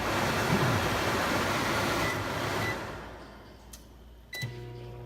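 Over-the-range microwave's vent hood fan running with a loud rush of air, then winding down after about three seconds. Near the end a keypad beep, and a steady low hum starts.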